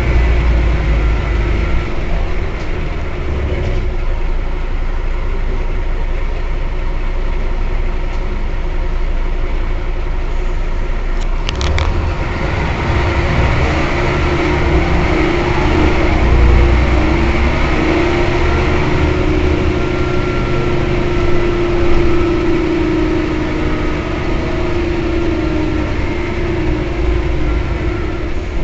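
Mercedes-Benz O 405 N city bus running, heard as a steady engine rumble with a tone that rises a little and strengthens about halfway through, then holds. A short burst of clicks comes just before the middle.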